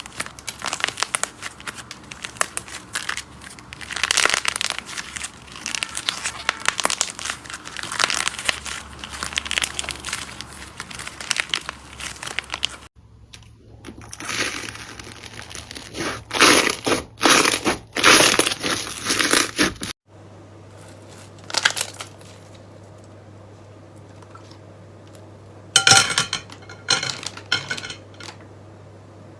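Slime being squeezed, pressed and poked by hand: crinkling, crackling and popping, in several spliced clips that cut suddenly a little under halfway and again about two-thirds of the way through. The last part is quieter, with a few short bursts of crackling near the end.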